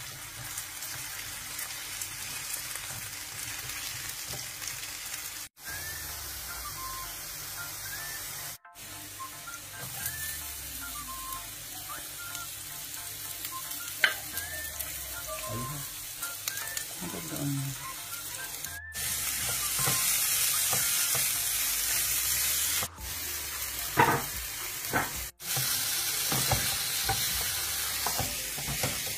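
Diced potatoes frying in oil in a pan, a steady sizzle with a wooden spatula stirring and scraping. About halfway through, chopped onions are tipped in off a wooden cutting board with a sharp clatter. Faint background music underneath.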